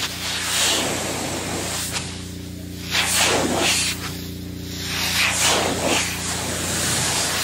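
High-pressure jet of soft water hissing as it hits the glass of solar panels, swelling and fading in three surges as the wand sweeps back and forth, over a steady low hum.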